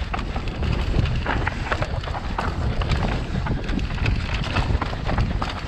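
Wind buffeting the microphone of a helmet-mounted camera on a fast mountain-bike descent over dirt singletrack, with a dense run of clicks, knocks and rattles from the bike's tyres, chain and frame going over roots and rocks.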